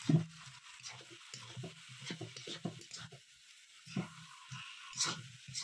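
Metal slotted ladle scraping and stirring thick pieces of turkey fry in a pan, in irregular strokes over a faint sizzle, as chopped coriander leaves are mixed in at the end of cooking. A sharp clank comes at the start, and louder scrapes come about four and five seconds in.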